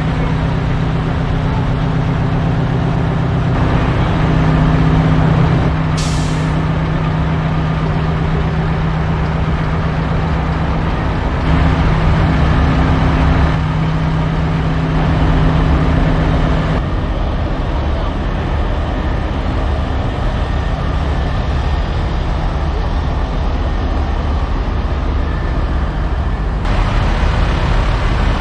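Diesel engines of parked semi trucks idling with a steady low drone, and a short sharp hiss of released air, like an air brake, about six seconds in.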